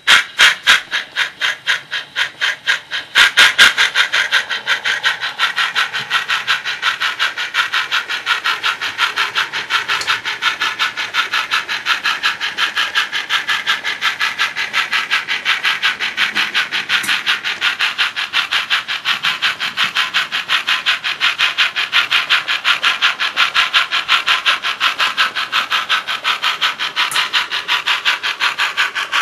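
Sound-equipped On30 model Forney steam locomotive chuffing in an even rhythm, several hissy chuffs a second. The chuffs are slower and softer for the first three seconds, then quicker and louder as the engine gets under way.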